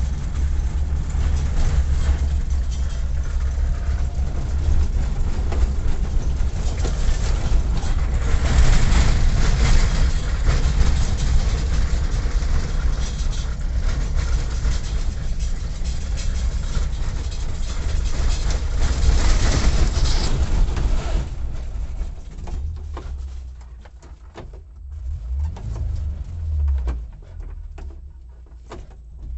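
A motor vehicle travelling, with a heavy low rumble and a steady noise; it eases off about three quarters of the way in, leaving a quieter, uneven rumble.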